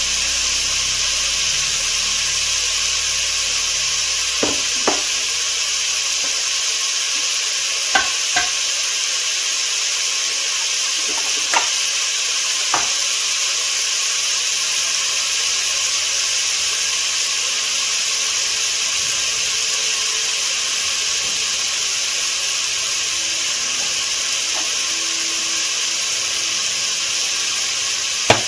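Food sizzling steadily in a frying pan as it is stirred, with several light knocks of a utensil against the pan.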